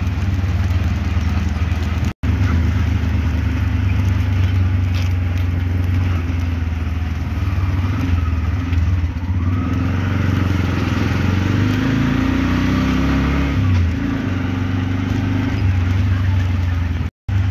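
Small engine of a mototaxi (three-wheeled auto-rickshaw) running as it drives, heard from inside its canvas cabin, a steady low hum that rises and falls in pitch around the middle. The sound drops out completely for a moment twice.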